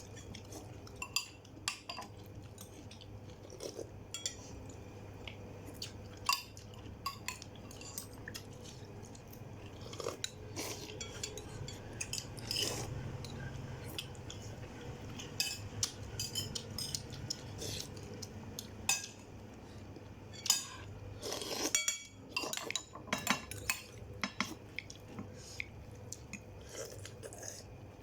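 Cutlery clinking against dishes in a run of irregular sharp clicks and clinks, over a low steady hum.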